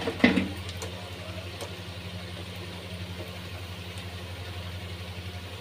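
Hot oil sizzling as mutton chops deep-fry in a pan, with a sharp metal clack about a quarter-second in as the wire spider strainer knocks the pan, and a few lighter clinks after. A steady low hum runs underneath.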